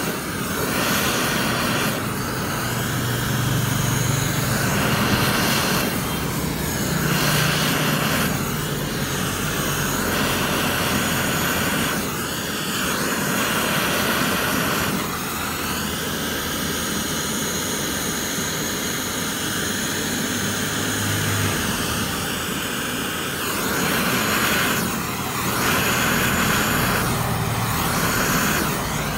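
Gas torch flame burning steadily with a jet-like rush, its tone shifting every second or two as it plays over a Grade 5 titanium bolt to heat-colour it.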